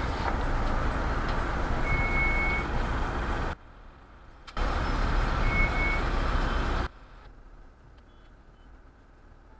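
Mahindra XUV700 front brakes squealing with a short high-pitched tone, once about two seconds in and again about five and a half seconds in, over road and tyre noise as the car slows toward a stop. The squeal started after the front brake pads were replaced. The road noise cuts off suddenly about three and a half seconds in, returns a second later, and cuts off again about seven seconds in.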